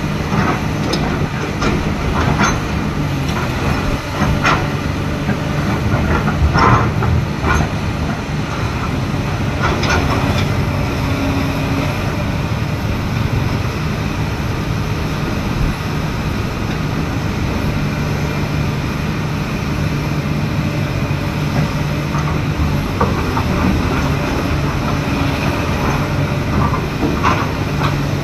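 Tracked excavator's diesel engine running with a steady low hum under load, with scattered metallic clanks and knocks from the machine, more of them in the first ten seconds and again near the end.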